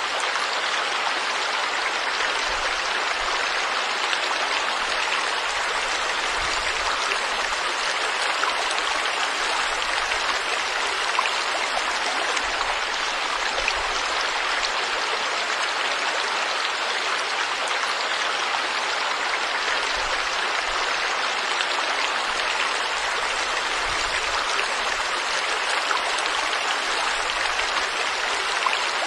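Forest stream flowing steadily, an even rushing and splashing of water over rocks.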